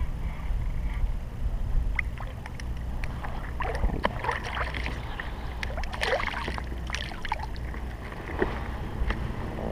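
A hooked crappie splashing and thrashing at the water's surface as it is reeled in beside a kayak: a run of sharp splashes from about two seconds in to about seven seconds, with a few lighter splashes near the end.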